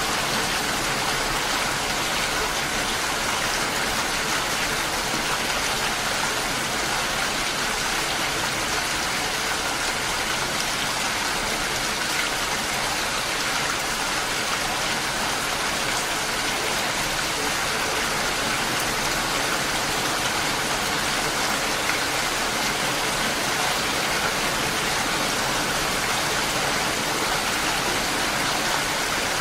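Steady rain falling, an even hiss of drops with no single drops or breaks standing out.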